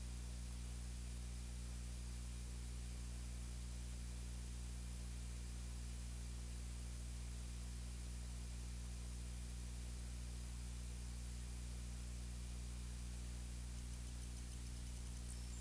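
Steady electrical hum with a layer of hiss that does not change.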